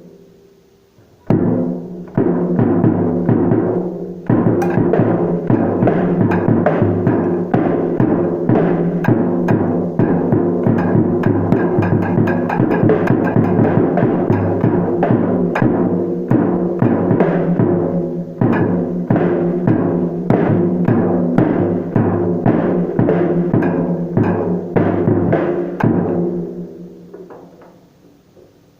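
Acoustic drum kit being played: a fast, continuous run of strikes with ringing drum tones, starting about a second in and dying away to silence near the end.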